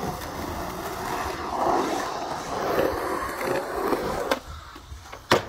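Skateboard wheels rolling and carving across a concrete bowl, a steady rough rolling noise. A sharp clack comes about four seconds in, then a quieter moment and a louder clack just before the end.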